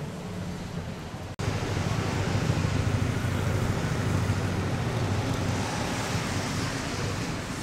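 Wind buffeting the microphone over a low steady hum of outdoor background noise. A brief dropout comes about a second and a half in, after which the noise is louder.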